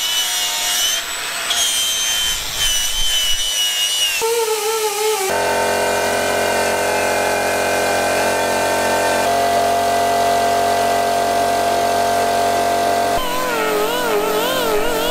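Power tools polishing a two-stroke dirt bike's exhaust pipe: a cordless angle grinder with a polishing wheel and a pneumatic die grinder, each giving a steady high whine against the metal. The sound changes abruptly several times as the clips cut, and the pitch wavers near the end as the tool is worked along the pipe.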